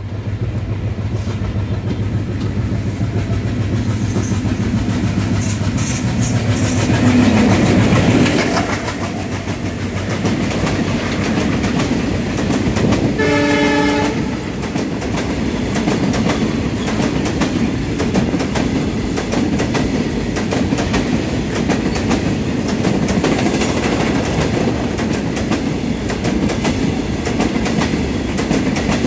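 A WDM-3D diesel-electric locomotive approaches and passes at speed, its engine hum growing to a peak about a quarter of the way in. A long rake of covered freight wagons then rattles past with a clickety-clack of wheels over rail joints. A train horn sounds once for about a second near the middle.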